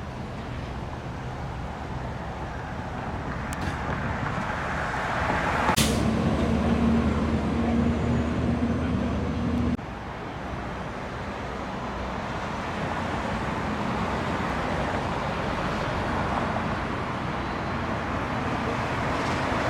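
Street traffic: motor vehicles passing, with a heavy vehicle's engine droning for a few seconds and then cutting off abruptly.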